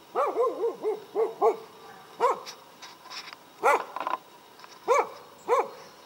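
Norwegian Elkhound barking: a quick run of about six short barks, then a few single barks spaced a second or so apart.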